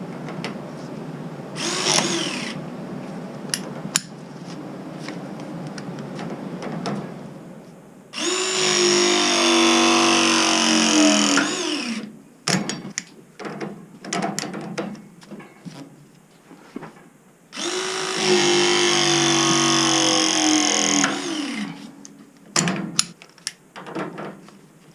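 Battery-powered ProPress crimping tool pressing copper fittings: the motor whines through two full press cycles of about three to four seconds each, the pitch dropping as each press finishes. Clicks and handling knocks come between the presses.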